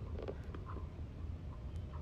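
Quiet room tone: a steady low hum with a few faint clicks.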